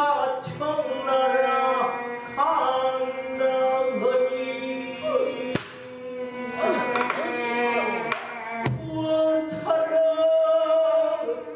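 A female pansori singer sings a slow, sorrowful line in long held notes that waver and slide in pitch, with a few sparse strokes on a buk barrel drum.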